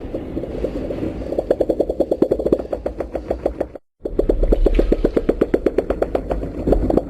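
Monster sound effect of the MUTO kind: a rapid clicking rattle at about ten clicks a second, in two stretches split by a brief silence just before four seconds in.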